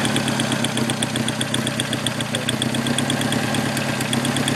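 1988 Hyundai Excel four-cylinder engine idling smoothly while a pulled spark plug wire arcs over, a rapid, even ticking of snapping sparks over the engine. The arc raises the firing voltage so the cylinder fires. The misfire was traced to worn spark plugs that new plugs cured.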